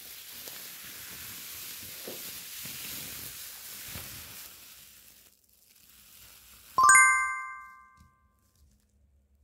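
A hand rubbing across synthetic grass makes a soft rustling hiss for about five seconds. About seven seconds in comes a bright, ringing notification chime, the loudest sound here, fading out over about a second.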